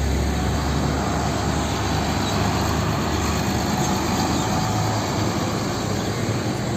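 A steady rumbling noise like a running vehicle, even throughout, with a strong deep low end.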